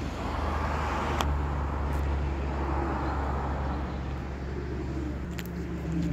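Road traffic: a vehicle passes by over the first few seconds over a steady low rumble, with a low engine hum coming in near the end.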